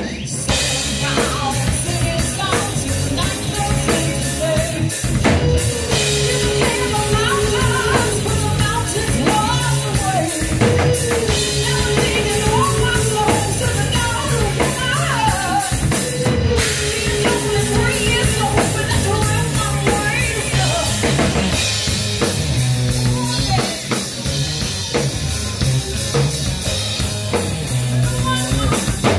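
Live rock band playing: a drum kit with kick drum and cymbals driving a steady beat under electric guitars, with a woman singing lead, her held notes clearest in the middle stretch.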